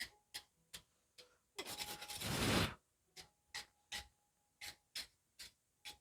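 Hand scrubbing of steel knife blades to clean off flaking anti-scale clay coating after a normalizing cycle. The strokes are short and come about two to three a second, with one longer, louder scrub about two seconds in.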